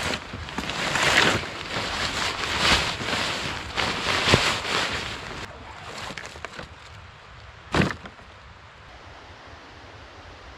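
Fabric gear bags rustling as they are stuffed and strapped onto a plastic sled, in several loud bursts over the first five seconds, then quieter with one short sharp sound near eight seconds.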